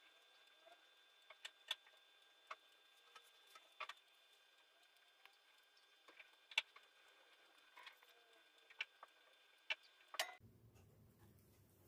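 Light, irregular clicks and taps, as of small objects being handled and set down, over a faint steady hum with a few high thin tones; about ten seconds in, the background switches suddenly to a lower, rumbling room tone.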